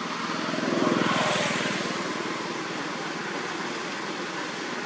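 A passing motor vehicle: its engine swells to its loudest about a second in, then fades into a steady background hiss.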